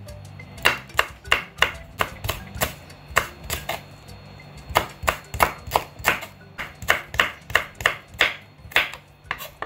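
Kitchen knife slicing green chillies on a wooden cutting board: sharp knocks of the blade on the board about three times a second, with a short pause near the middle. Quiet background music plays underneath.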